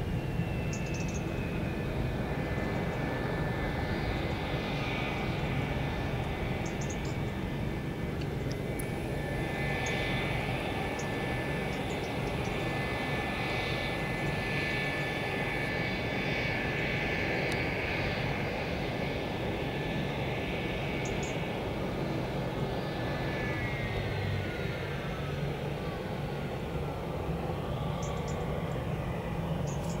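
A McDonnell Douglas MD-87's rear-mounted Pratt & Whitney JT8D turbofans whining steadily as the airliner taxis slowly along the runway after landing. About three-quarters of the way through, the whine drops in pitch over a few seconds.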